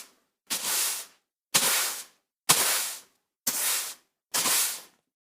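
Five short bursts of hissing noise, about one a second, each starting sharply and fading out within half a second.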